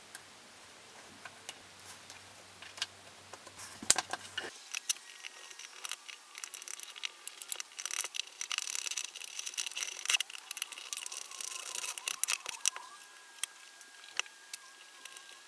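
Clicks, taps and small rattles of a cordless drill's plastic housing being handled and screwed back together, densest in the middle as the case screws are driven in with a screwdriver.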